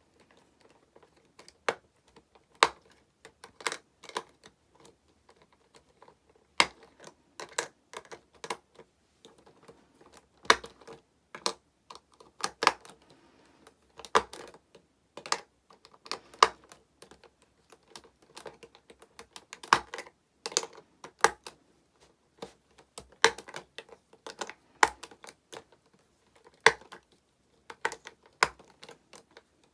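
Hard plastic clicking and tapping as Prism Stone pieces and their plastic collector trunk are handled. The sharp clicks come unevenly, about one or two a second, some much louder than others.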